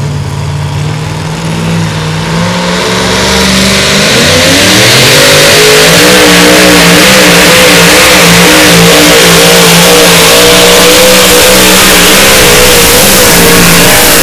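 Two-wheel-drive pulling truck's supercharged engine coming up from a lower steady note over the first few seconds, then running loud at high revs under load as it pulls the weight sled, its pitch wavering up and down.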